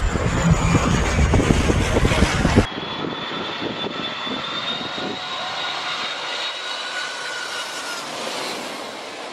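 Airliner engines passing low overhead: loud rushing noise with a heavy low rumble that cuts off abruptly about two and a half seconds in, giving way to quieter engine noise with a thin, steady high whine.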